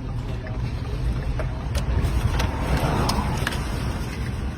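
Steady low rumble of wind and vehicle noise from storm-chase footage, with a louder rush of wind noise from about two and a half seconds in that lasts under a second.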